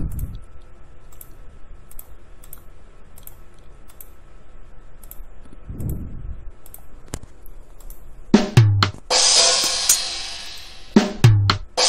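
Scratch's built-in drum sounds played by a stack of 'play drum' blocks: a quick run of drum hits about eight seconds in, with a deep bass-drum thump and a long cymbal wash, then a second run starting near the end. Before that only faint mouse clicks.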